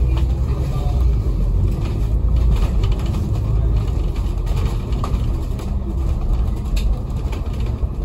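Onboard a city bus under way: a steady low rumble of the engine and road noise, heard inside the cabin.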